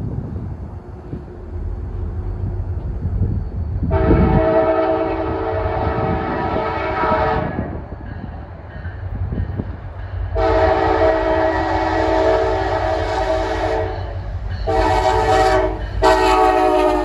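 CSX FP40 diesel locomotive's air horn blowing the grade-crossing signal: two long blasts, a short one, then a final long one whose pitch drops at the end as the train passes. A low rumble from the train underlies it.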